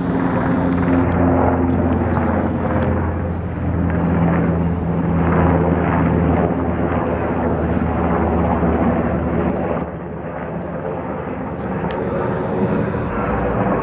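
UH-60 Black Hawk helicopter flying low overhead: a steady, rapid rotor beat over a turbine hum, dropping somewhat about ten seconds in.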